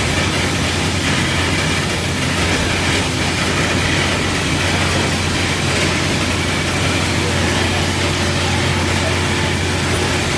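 Paddlewheel steamboat's horizontal steam engine running: a loud, steady mechanical din, a constant low hum under an even hiss, with no separate strokes standing out.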